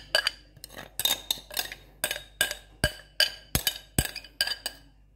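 Metal spoon knocking and scraping against the rim of a mixing bowl as cake batter is cleared out into the pan: an irregular series of sharp clinks, two or three a second, each ringing briefly.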